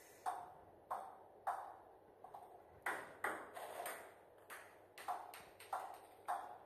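Table tennis ball tapped on a table tennis racket, about a dozen short, sharp pocks at uneven intervals, some softer than others.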